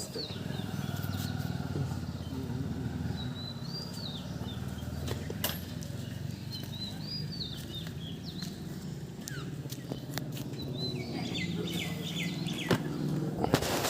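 Outdoor ambience: a low, steady engine hum, with birds chirping now and then and a couple of sharp clicks.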